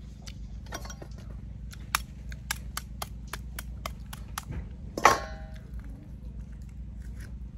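Light, quick clinking taps of a small hard object, about four a second for two seconds, as while eating balut; a short, louder pitched sound follows about five seconds in.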